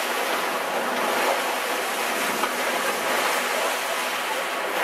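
Steady rush of sea water along the catamaran's hulls as it moves through open sea.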